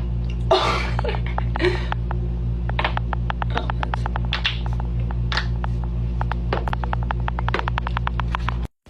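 Joints cracking: a rapid run of sharp clicks and pops, about four a second at their thickest, over a steady low electrical hum, all cutting off suddenly near the end.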